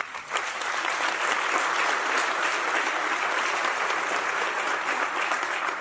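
Audience applauding: a steady, even clapping of many hands in a large hall.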